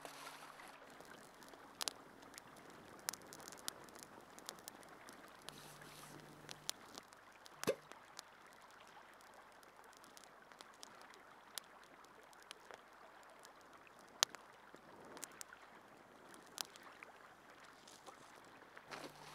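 Faint, steady background ambience of running water, like a small creek, with scattered light clicks and ticks; the sharpest clicks come about 8 and 14 seconds in.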